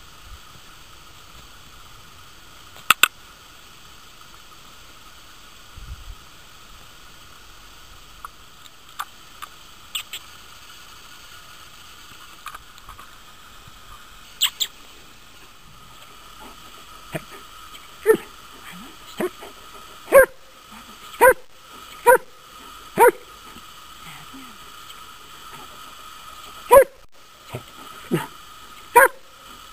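German Shepherd dog barking in single sharp barks: a few scattered early on, then a run of barks about a second apart through the second half.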